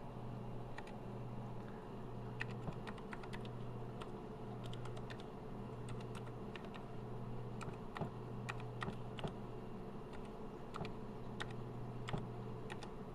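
Keys being typed on a TRS-80 Model 12 keyboard, fitted with replacement foam key pads: irregular clicks, sometimes several in quick runs, with short pauses between. A steady low hum runs underneath.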